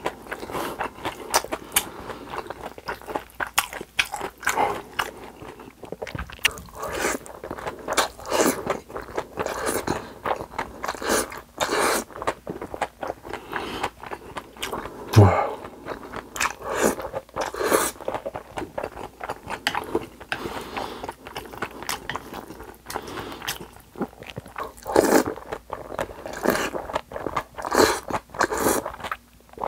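Close-miked eating of spicy cold mixed noodles (bibim naengmyeon): noodles slurped in and chewed, with a steady run of short wet mouth clicks and bites.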